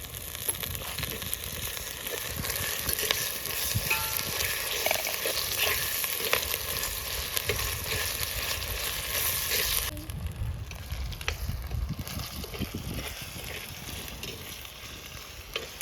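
Onions, green chillies and whole spices sizzling in hot oil in a pan, with ginger-garlic paste just added, and small clicks and scrapes of a spoon stirring. The sizzle drops off sharply about ten seconds in, leaving a quieter low rumble.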